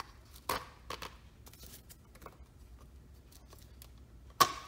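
Plastic handling clicks and taps from a clip-on motorcycle windscreen extension and its black plastic brackets being turned over and adjusted: a few light clicks about half a second and a second in, and one loud sharp click near the end.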